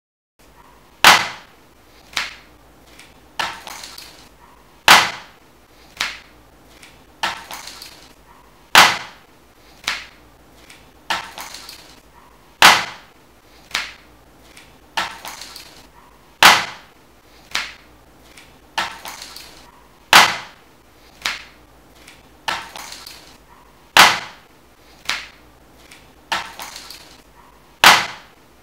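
Sharp percussive hits in a steady repeating rhythm, starting about a second in: a loud hit about every four seconds with two lighter hits between, some trailing a short rattle.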